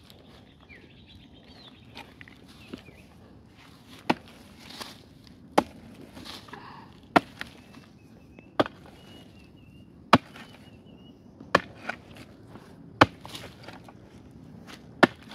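Evenly paced blows of a digging tool chopping into the hard earth of a termite mound, about one strike every second and a half.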